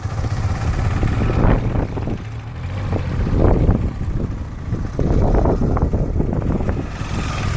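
Motorcycle engines of a Kawasaki Zephyr 550 and a KTM Duke 390 running at low speed as the bikes ride close around, the sound swelling and fading several times as they pass.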